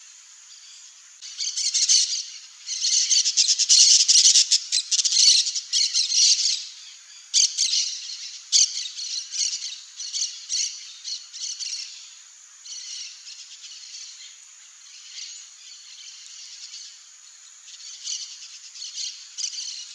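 Birds squawking in a rapid, harsh chatter, loudest for the first several seconds, then in quieter bursts, over a thin steady high-pitched hum.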